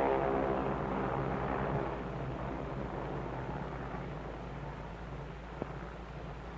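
Aircraft engines running steadily on an old film soundtrack, slowly getting quieter. A sustained tone fades out over the first two seconds, and there is one sharp click near the end.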